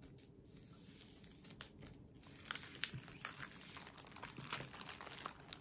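Clear plastic sleeves holding patterned scrapbook paper crinkling and rustling as they are handled. Faint at first, then a dense crackling from about two seconds in.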